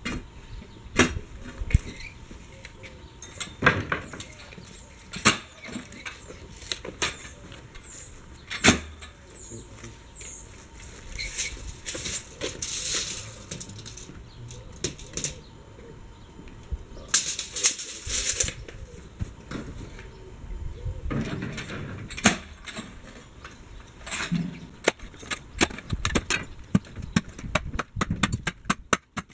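Hand digging with a spade in garden soil: sharp strikes a few seconds apart, with scraping of earth and a run of quick clicks and scrapes near the end.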